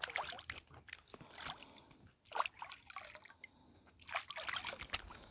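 Hands being washed in shallow water, splashing and sloshing in irregular bursts.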